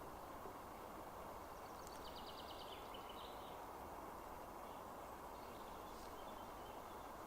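Faint steady outdoor background noise with a small songbird calling: a quick run of high chirps about two seconds in, and fainter high notes around six seconds.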